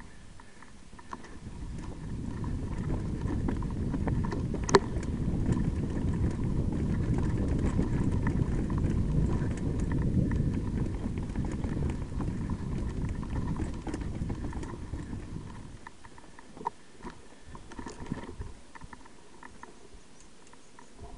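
Mountain bike riding down a rough trail: a steady rumble of wind and tyre noise on the camera's microphone, with rattling clicks and one sharp knock about five seconds in. From about sixteen seconds it drops to quieter scattered clicks and scuffs as the rider goes on foot.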